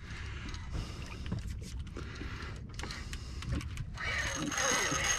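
Fishing reel being worked against a hooked shark, its gears whirring with a thin high whine that grows louder about four seconds in, over a low steady rumble of wind and water.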